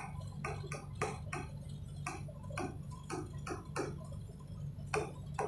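Pen tip tapping and clicking on an interactive whiteboard screen while letters are written, a few light irregular clicks a second, over a steady low hum.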